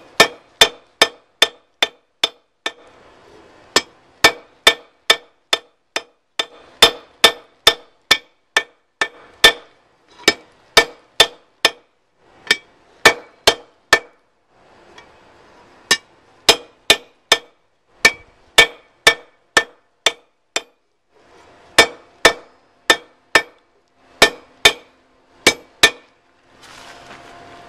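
A hand hammer strikes hot half-inch rebar on a small anvil, about three blows a second in runs with short pauses, and each blow rings briefly. The bar is being drawn down to thin and curve the jaws of a pair of forged tongs.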